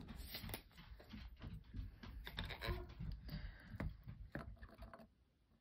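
Faint, irregular light clicks and ticks of a metal frit scoop tapping and glass frit granules dropping onto a glass blank, stopping about five seconds in.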